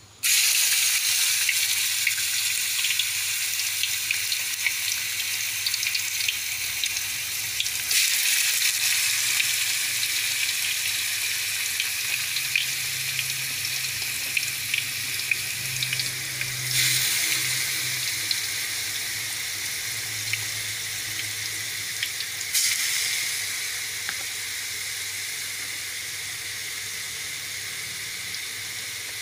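Marinated sliced beef frying in hot oil: a dense sizzle with scattered crackles that bursts in as the meat hits the oil, jumps louder again three times (about a quarter, just over half, and three quarters of the way through), then slowly settles.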